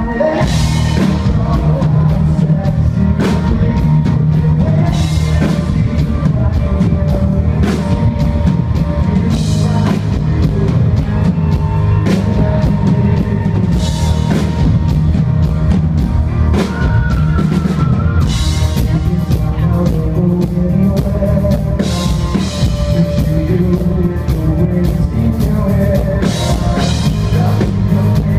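Live rock band playing at full volume, with a pounding drum kit and electric guitar over a heavy bass line.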